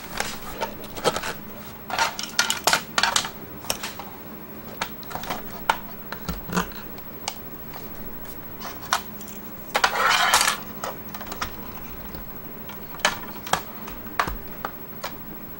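Hard plastic toy wrestling-ring parts being handled and fitted together: irregular clicks, taps and knocks, with a longer scraping rustle about ten seconds in.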